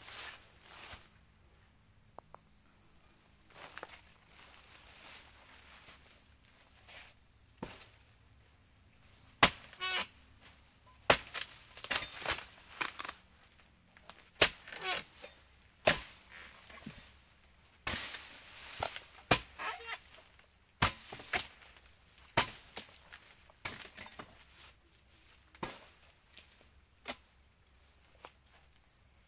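Steady high insect drone, joined about a third of the way in by a long, irregular run of sharp chopping knocks, one to two seconds apart and sometimes in quick clusters, as a tool strikes through oil palm stalks or fronds during harvesting.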